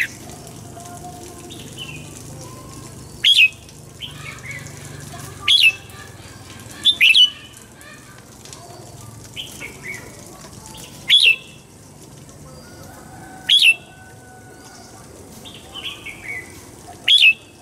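Red-whiskered bulbul song: loud, short, sharp phrases about every two seconds, with softer falling whistled notes between them.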